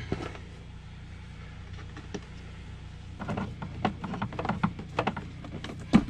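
Handling noise from fitting a replacement HVAC blower motor into a Freightliner's plastic heater box. Scattered clicks, knocks and scrapes start about halfway through and end in a sharp knock near the end, over a steady low hum.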